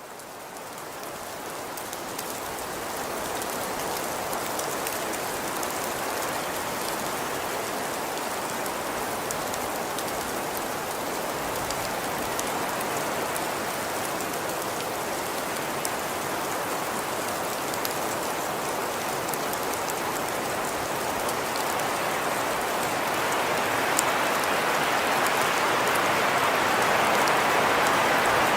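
Steady rain falling, a dense hiss with scattered drop ticks. It fades in over the first few seconds and grows heavier about three quarters of the way through.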